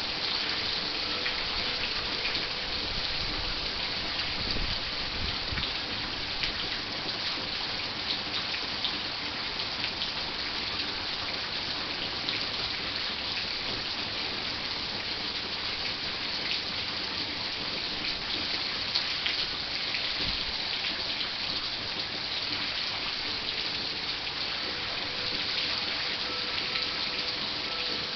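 Heavy rain falling steadily, with many individual drops ticking close to the microphone.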